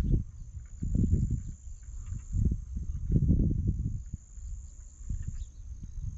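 A steady high trill of crickets runs throughout. Louder low rumbling surges come and go every second or two.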